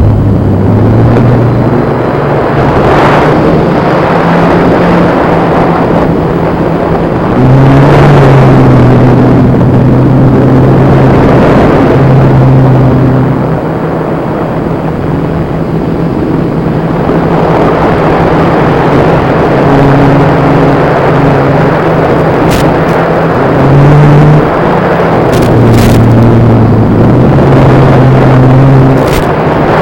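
Blade Chroma quadcopter's motors and propellers in flight: a loud buzzing hum whose pitch steps up and down with the throttle, over a rush of air noise. A few sharp clicks in the last third.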